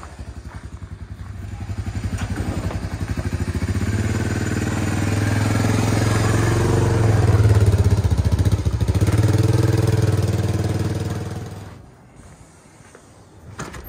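Honda ATC250ES Big Red three-wheeler's single-cylinder engine running just after a choked start, ridden slowly past at low revs. It grows louder up to about eight seconds in, then dies away about twelve seconds in.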